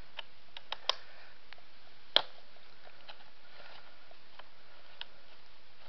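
A few sharp clicks and light taps from handling the small screws and plastic and metal parts of an airsoft rifle's stock during disassembly. The loudest click comes about two seconds in, over a faint steady hiss.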